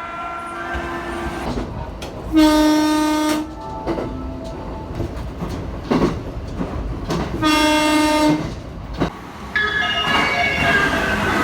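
Japanese train's horn sounding two short, identical blasts about five seconds apart over the noise of a train running on the rails, then a different, higher horn tone near the end.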